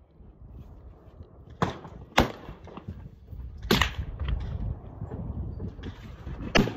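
Four sharp snaps from a Traditions Kentucky .45-calibre percussion pistol as it is readied and aimed, the first two close together about two seconds in, then one near four seconds and one near the end, over a low wind rumble.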